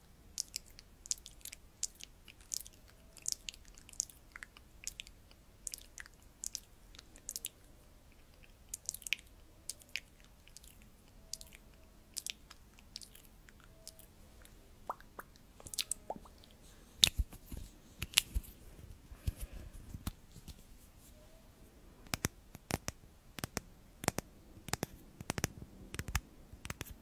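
Close-miked ASMR clicks and crackles, irregular and sparse at first, with denser runs of sharper ones from about 17 seconds in and again from about 22 seconds in.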